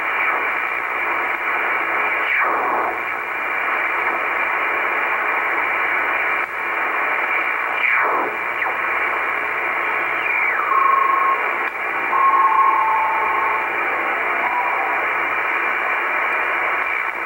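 Icom shortwave communications receiver in upper sideband mode giving out steady band-noise hiss while it is tuned up through the 11 MHz band. A few short falling whistles come through as the dial sweeps past signals, and a few brief steady tones sound a little past the middle.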